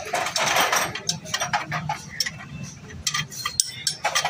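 Metal tools clinking and knocking against a car's front steering knuckle and wheel hub: an irregular run of sharp clicks, with a short scraping rasp in the first second.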